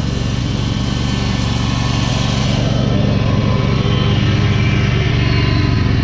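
Dixon zero-turn mower's engine running under load while mowing, getting louder as the mower drives up and passes close by about halfway through.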